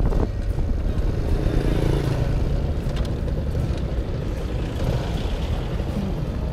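Yamaha motor scooter riding along a road: the small engine runs steadily under a constant low rumble of road and air noise.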